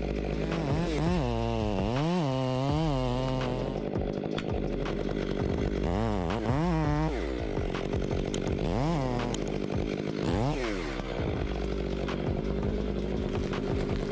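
Stihl chainsaw running at idle and revved up and back down several times, each rev a quick rise and fall in pitch.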